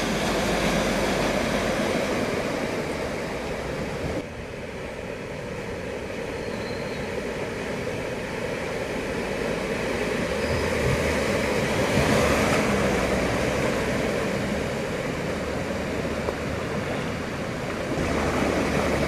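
Floodwater splashing and rushing around vehicles driving through a flooded street, with a low engine hum underneath. The sound shifts abruptly about four seconds in and again near the end.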